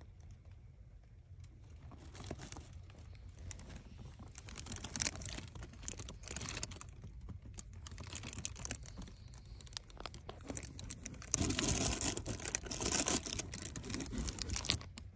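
A cat shifting about in a cardboard box, its claws and body scratching and rustling against the cardboard, with many small clicks. The rustling starts about two seconds in and is loudest and busiest in the last few seconds.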